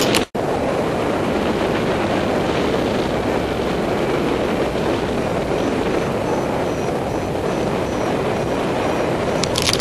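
Steady rush of wind over the camera microphone of a paraglider in flight, an even noise without a break except for a brief dropout just after the start.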